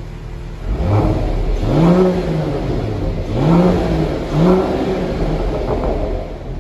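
Mercedes-AMG GT 43's turbocharged inline-six, revved through a valvetronic catback exhaust with the valves open in sport mode. It starts at idle, then gets four quick throttle blips about a second apart, each rising and falling in pitch, the first small. It then settles back down.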